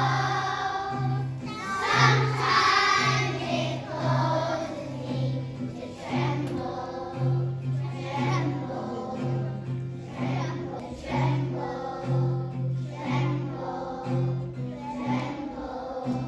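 Children singing together as a group over instrumental accompaniment with a steady, repeating bass line.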